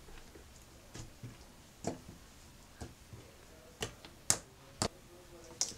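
Homemade cream cheese slime (PVA glue and shaving foam, borax-activated) being stretched and poked by hand, giving a scatter of sharp little clicks and pops, about seven in all, the loudest a little past four seconds in.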